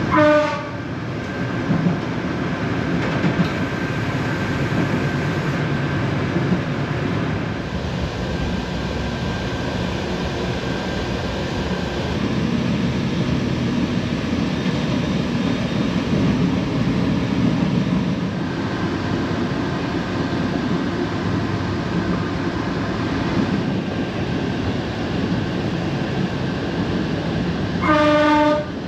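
Inside a FEVE narrow-gauge train running slowly: the steady rumble of the running gear under the carriage, with two short blasts of the train's horn, one right at the start and one near the end.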